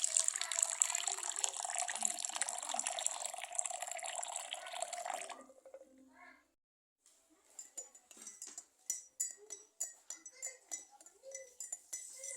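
Water pouring or running in a steady stream for about five seconds, then stopping. After a short gap comes a quick series of light clinks and taps.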